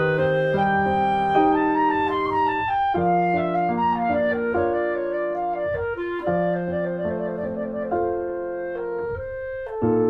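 Background instrumental music: slow held melody notes over piano, with a woodwind-like lead.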